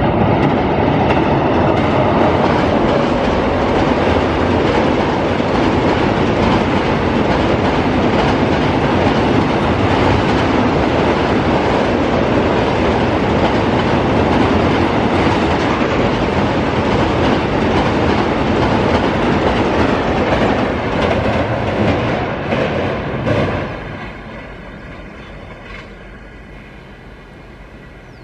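An express train hauled by a WAP-7 electric locomotive passing over a railway bridge: a loud, steady rumble with the clickety-clack of coach wheels over rail joints. About 23 seconds in, the noise drops sharply as the last coach goes by, then fades away.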